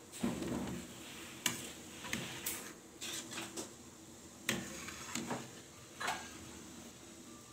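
Metal ladle knocking and scraping against an aluminium pot as boiled cilok are scooped out of the water and tipped into a plastic colander, with water splashing and dripping. Several irregular sharp knocks.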